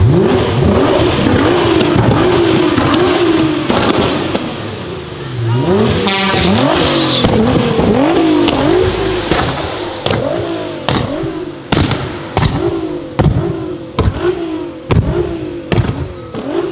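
Nissan GT-R R35's twin-turbo V6 through a full Akrapovic exhaust, blipped again and again with each rev climbing and dropping away. From about ten seconds in, a quick string of sharp bangs comes from the exhaust between short revs: pop-and-bang backfires as fuel ignites in the exhaust.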